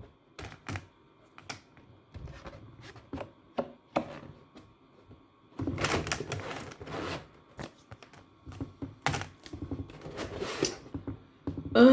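Thin plastic panels of a flat-pack folding shoe box clicking, tapping and rattling as they are handled and folded, with a denser stretch of scraping and rustling about six seconds in and again near the end.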